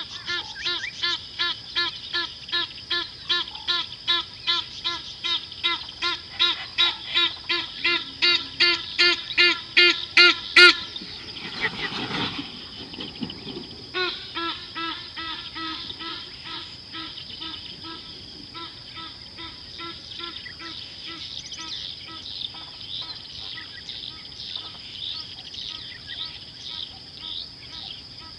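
A bird calling a long, even series of pitched notes, about two a second, growing steadily louder for about ten seconds and then stopping. After a brief noisy patch the calls start again more softly, over a steady high-pitched insect hum.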